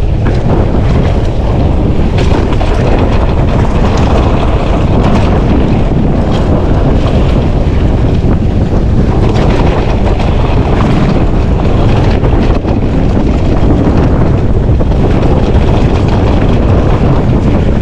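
Loud wind noise on the microphone of a camera riding a mountain bike downhill at speed, with frequent knocks and rattles from the bike over rough ground.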